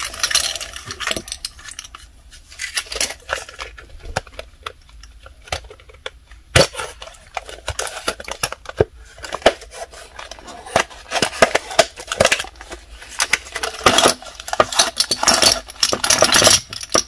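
Small plastic jars of flocking powder clicking and clattering as they are pushed out of a cardboard tray insert and set down on a table, with long acrylic nails tapping against them. Many quick clicks in irregular clusters, busiest in the second half, with one sharper knock about six seconds in.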